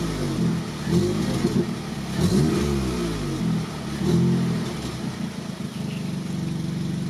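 VW Mk7 Golf R's turbocharged 2.0-litre four-cylinder revved in four quick throttle blips at standstill, the pitch rising and falling with each. It settles back to a steady idle about five seconds in. The airbox has its snow guard removed and a K&N panel filter fitted, to bring out more intake and turbo sound.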